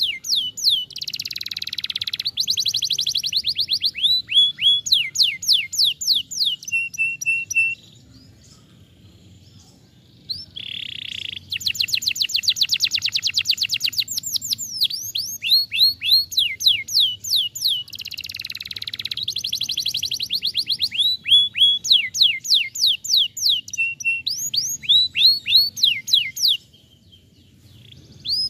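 Domestic canary singing: long phrases of rapidly repeated notes, fast trills and quick downward-sweeping whistles. The song comes in two long bouts with a gap of about three seconds between them, and breaks off again briefly near the end.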